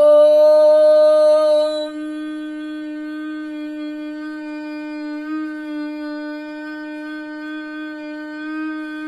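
A woman chanting a long 'Om' in Bhramari (bee-breath) pranayama on a slow exhalation. It opens on a bright, open 'O' for about two seconds, then closes into a quieter, even 'mm' hum held on one steady pitch.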